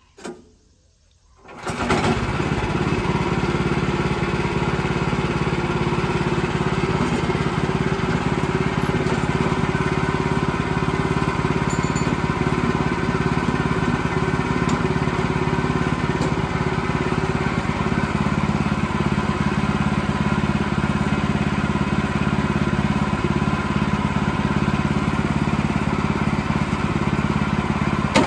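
The small gas engine of a push-through band sawmill comes on suddenly about two seconds in and then runs steadily at constant speed.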